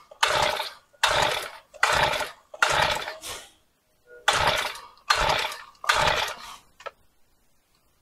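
Mini 40 mini dirt bike's small engine being pull-started with the choke on: seven pulls in two runs, with a short pause after the fourth. Each pull gives a short burst of cranking noise, and the engine does not catch.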